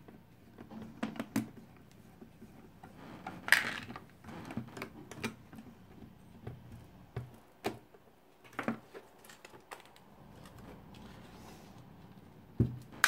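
Hands working at the metal case of an AVO 8 multimeter to take it apart: scattered small clicks, taps and knocks, with one louder knock about three and a half seconds in.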